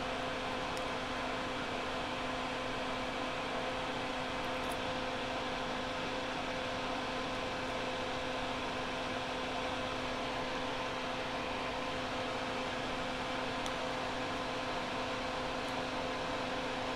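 A steady background hum and hiss, with a few faint, short ticks scattered through it as small flush cutters snip the inductors' leads free of their paper tape.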